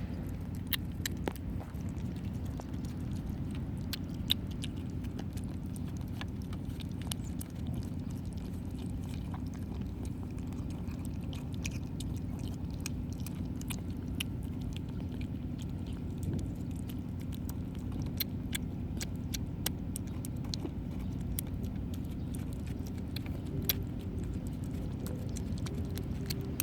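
Kittens eating, with many small wet chewing and lapping clicks going on throughout. A steady low hum runs underneath.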